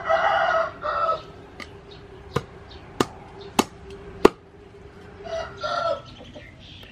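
A rooster crows at the start. Then a cleaver chops through chicken wings onto a wooden cutting board four times, about every 0.6 s, and a chicken calls again briefly near the end.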